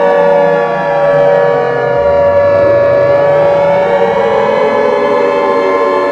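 Emergency-alert-style alarm made of layered siren tones: several steady pitches held together while other tones glide down and then sweep back up, continuous and loud.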